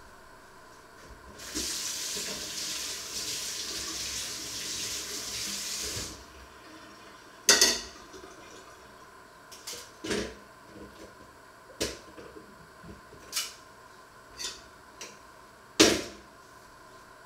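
Kitchen tap running for about four and a half seconds, then shut off. After it come several sharp knocks and clinks, the two loudest about seven and a half seconds in and near the end.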